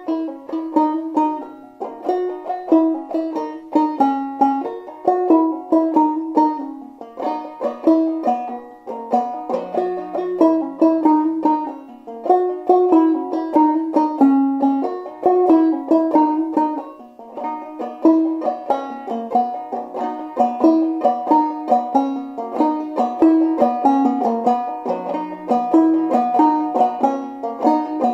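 Five-string banjo played clawhammer style, a lively jig in a double-C-type tuning, with the melody picked in steady rhythmic plucked notes.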